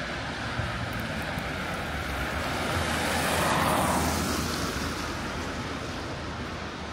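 A vehicle passing on the street, its tyre and engine noise swelling to a peak about halfway through and then fading, over a steady low hum of distant city traffic.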